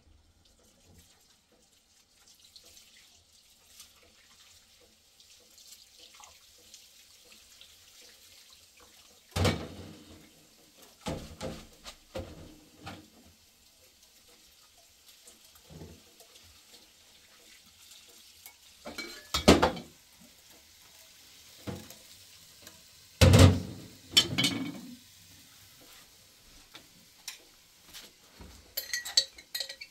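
Dishes and pots being handled: a few loud clanks and knocks several seconds apart, with a faint steady hiss between them and small clinks near the end.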